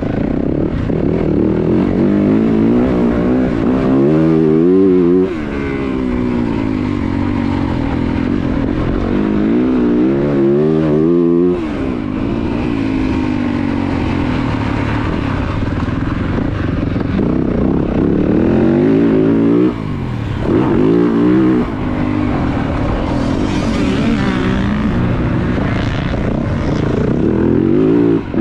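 2023 Yamaha YZ450F's 450 cc four-stroke single-cylinder engine revving hard under load, heard on board. Its pitch climbs and falls back repeatedly, and the throttle is chopped sharply several times.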